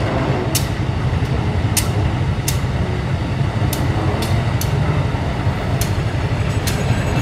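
GE CC 201 diesel-electric locomotive's engine running with a steady low rumble as the locomotive rolls slowly through a tight curve, with sharp clicks about once a second.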